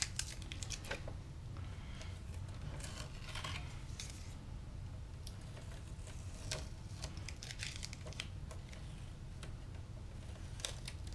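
Fine tweezers lifting and peeling masking tape off a plastic scale model: scattered small clicks and faint peeling rustles over a low steady hum.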